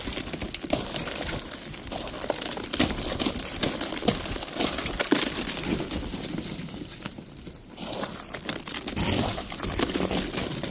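Thick ice crust over fluffy snow crunching and crackling as it is broken underfoot, in dense, irregular crackles, easing off briefly about two-thirds of the way through.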